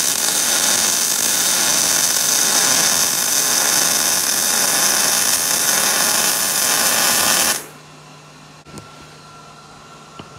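Wire-feed welder laying a continuous bead on a steel crossmember plate: a loud, steady crackling hiss. It cuts off suddenly about seven and a half seconds in, leaving only a faint low shop hum.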